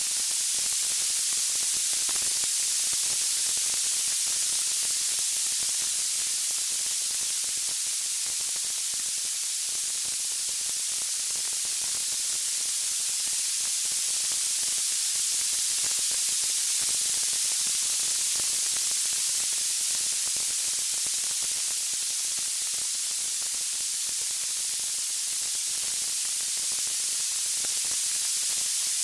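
Steady white-noise hiss, bright and high-pitched, holding even throughout with no distinct crackles or pops.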